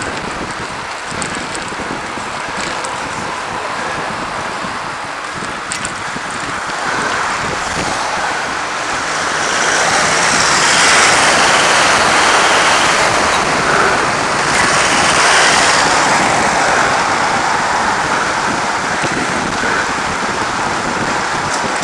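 Wind rushing over the microphone of a moving bicycle, mixed with road traffic noise. It swells louder for several seconds past the middle, then eases a little.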